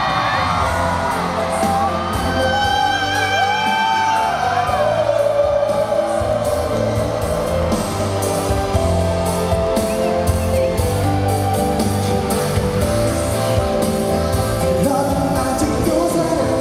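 Live pop ballad played loud in a large hall, with a steady bass beat, held sustained notes and a sung vocal line, and occasional audience shouts and whoops.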